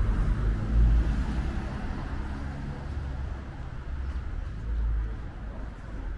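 City street ambience: a low traffic rumble that swells about a second in and again about five seconds in.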